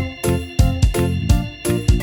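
Background music: upbeat keyboard tune with a steady beat.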